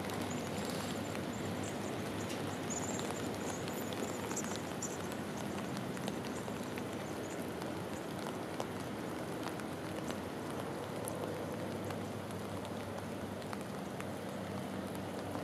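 Steady rain falling on open water, an even hiss with scattered faint drop ticks.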